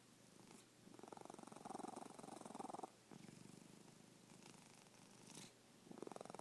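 Domestic cat purring softly, a fine rapid buzz that swells with each breath. It is louder for about two seconds starting a second in, softer for about three seconds, then louder again near the end.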